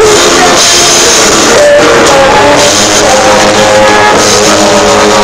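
Live rock band playing loud: electric guitar, drum kit and a singer holding long sung notes.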